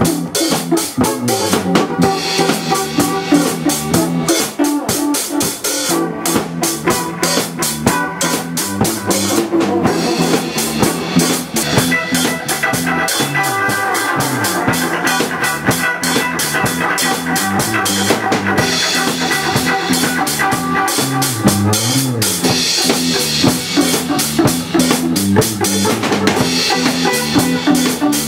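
A rock band playing live with drum kit, electric bass and electric guitar in an instrumental jam. The drums keep a steady, busy beat under sustained guitar and bass notes.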